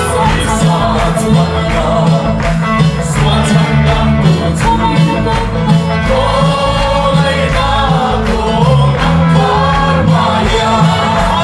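A group of voices singing a gospel hymn together with a steady drum beat.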